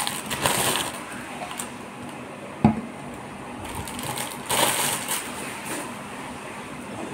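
Clear plastic bag crinkling as it is pulled off and handled, in short bursts near the start and again a little past halfway. A single sharp knock comes about two and a half seconds in.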